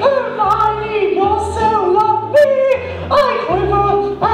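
A song: a voice singing a melody of held, upward-scooping notes over a backing track with a bass line.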